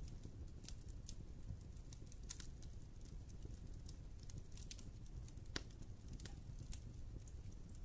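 Wood fire in a fireplace crackling: irregular sharp pops and snaps over a low steady rumble of the flames, with one louder pop about five and a half seconds in.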